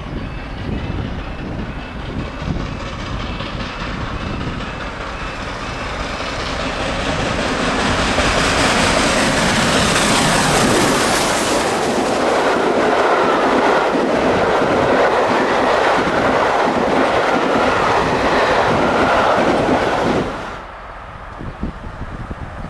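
LNER A4 Pacific steam locomotive 4464 Bittern approaching at speed and sweeping past with its coaches, building to a great crescendo about ten seconds in as the engine goes by. The steady clatter of the coach wheels follows and cuts off suddenly as the last coach passes, near the end.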